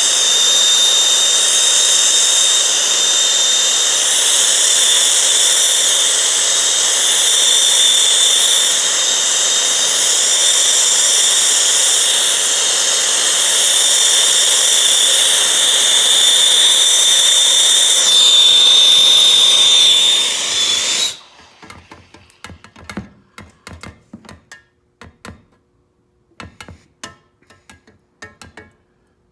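Gas torch flame hissing steadily with a thin whistling tone while heating a steel part for hardening. About 21 seconds in it cuts off abruptly, followed by a scatter of light clicks and knocks.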